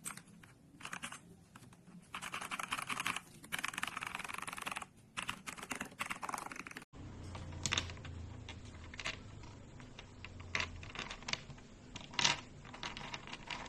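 Mechanical keyboard switches clacking under fast, continuous typing for about seven seconds. After an abrupt cut come slower, separate key presses over a faint low hum.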